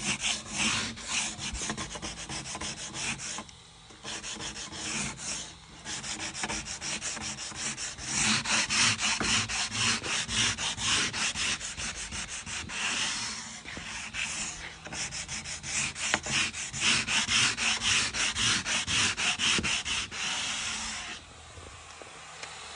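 Sandpaper rubbed back and forth by hand over wood, in quick even strokes about four a second, with short breaks about 4 and 6 seconds in. It stops about 21 seconds in.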